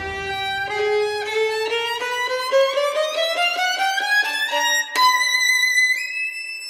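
Background music: a run of quick notes climbing steadily in pitch, then a sharp accent and a long high held note that steps up once more near the end.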